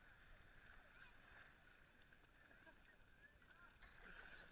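Near silence: faint, muffled splashing of people moving through shallow water, a little louder near the end.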